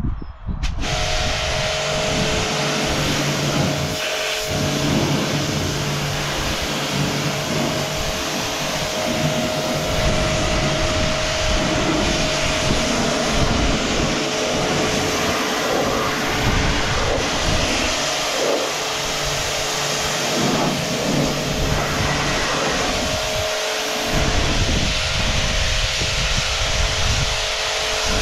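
Karcher HD 5/11 C pressure washer starting up just under a second in, then its electric motor and pump running steadily with a constant hum, under the hiss of the high-pressure water jet spraying onto a tyre and wet tarmac. The motor is starting and running again on its newly replaced start capacitor.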